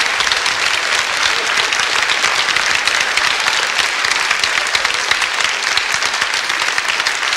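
A large seated studio audience applauding, with steady, dense clapping throughout.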